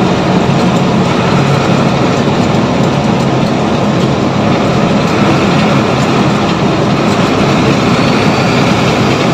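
Steady engine and road noise heard from inside a truck cab as the truck runs at highway speed, with a low engine hum under a loud even rush of tyres and wind.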